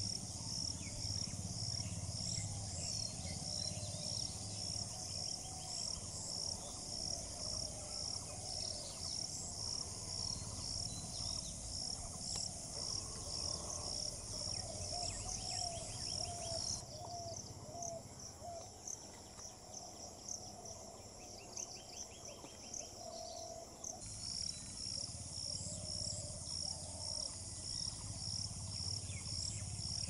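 An insect calling in a steady high pulsing rhythm, about two pulses a second, over fainter chirps and a low hum. The pulsing drops out for several seconds after the middle, then resumes.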